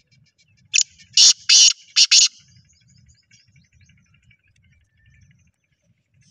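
Black francolin (kala or sheedi teetar) giving its loud, grating call: about five harsh notes in a quick burst lasting a second and a half, starting about a second in.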